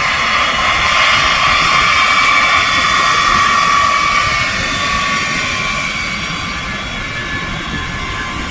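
B-52 Stratofortress's eight Pratt & Whitney TF33 turbofan jet engines running: a loud roar with a high whine on top, easing a little in the second half.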